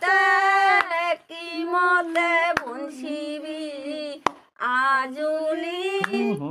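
A woman singing an unaccompanied village folk song, long held notes that waver in pitch, with short breaks between phrases. Two sharp clicks come in the middle.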